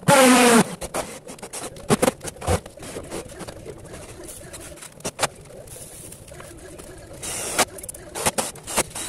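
Cordless drill whirring briefly, driving a self-drilling screw through a thin steel plate into the light-steel frame to clamp the pond tarp. Scattered clicks and knocks of handling follow, with a second short burst about seven seconds in.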